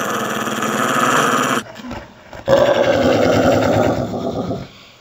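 A small puppy's growl played back slowed down, so it comes out as a deep, rattling growl, in two long stretches with a short break between.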